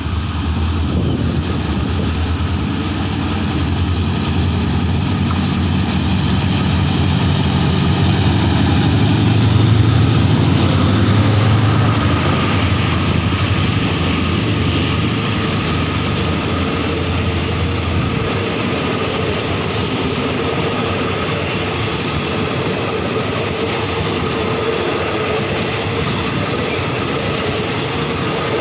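Hitachi 4500-class diesel-electric locomotive of the State Railway of Thailand pulling a passenger train out of the station and passing close by. Its engine drone builds and is loudest about ten seconds in, then fades after about eighteen seconds. The coaches follow with a steady rumble of wheels on rail.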